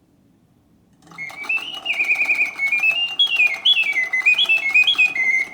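Antique Bontems mechanical singing bird cage whistling its bird song after a pause: a warbling run of stepped and sliding notes with a fast trill, starting about a second in, over light clicking from the clockwork mechanism.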